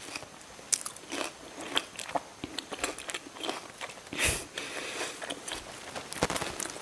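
Close-miked chewing of crisp, juicy bilimbi fruit (belimbing wuluh) dipped in sambal: irregular wet crunches and mouth clicks, with one louder crunch about two-thirds of the way through.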